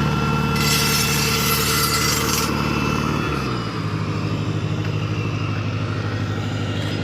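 Automatic rock-drilling machine running just after start-up, its engine note steady, with a burst of air hiss for about two seconds. About three seconds in the engine note drops as it takes load and settles into a fast, even pulsing as the drill bores a hole into the sandstone.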